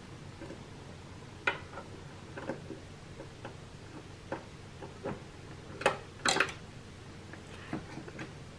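Small hand screwdriver driving a screw into the plastic frame of a circular knitting machine: scattered, irregular clicks and ticks of metal on plastic, the two loudest about six seconds in.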